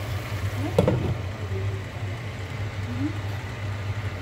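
Chicken drumsticks frying in oil in a pan, with a steady low hum underneath and one sharp knock about a second in.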